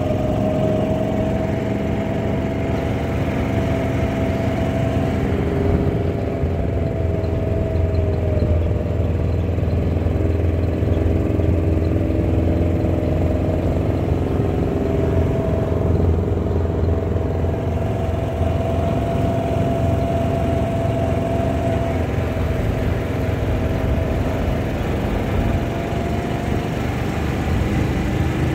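Kawasaki Mule side-by-side's engine running steadily while driving along a dirt road. A whine sits above the low engine drone and dips and rises a little in pitch now and then.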